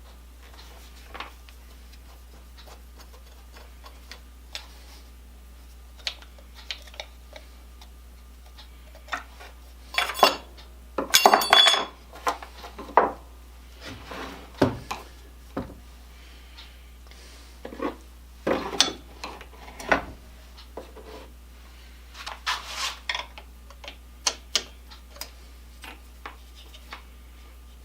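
Scattered clinks, taps and rubs of metal parts and tools being handled on a workbench, with a louder rattling clatter about ten to twelve seconds in, over a steady low hum.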